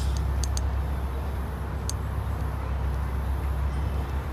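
Steady low rumble of outdoor background noise, with a few faint clicks about half a second and two seconds in.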